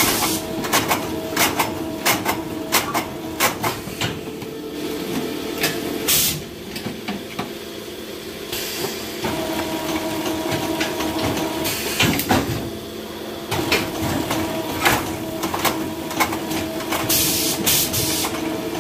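Mushroom spawn production machine running: a steady hum under irregular clattering clicks and knocks from its chain-and-sprocket mechanism, with a few short bursts of hissing.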